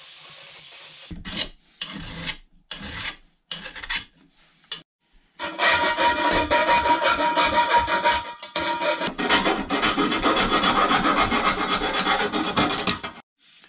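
Hand file scraping the cut end of a stainless steel pipe to deburr and chamfer the edge for welding. About five separate strokes come first, then from about five seconds in a fast, steady run of short strokes with a steady ringing tone under its first part.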